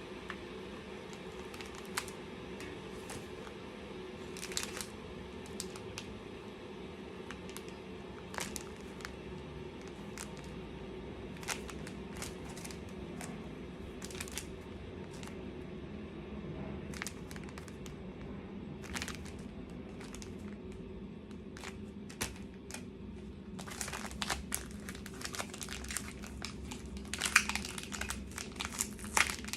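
Embroidery kit packaging being handled and crinkled: scattered sharp crackles at first, then a dense run of crinkling near the end, over a steady low hum.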